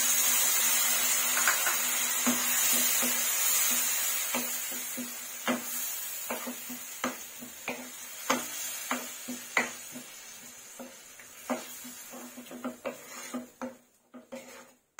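Grated tomato pulp sizzling in hot oil as it is poured into the pan, a strong hiss that slowly dies away. Through it a wooden spatula stirs the mixture, knocking against the pan at irregular intervals, about twice a second.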